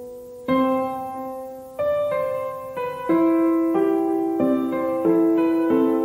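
Background piano music: a run of chords struck one after another, a new one about every half second to second, each ringing and fading.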